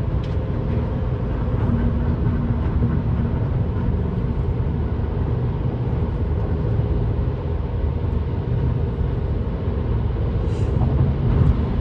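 Car cruising on a wet highway, heard from inside the cabin: a steady low drone of engine and tyre noise on the rain-soaked road.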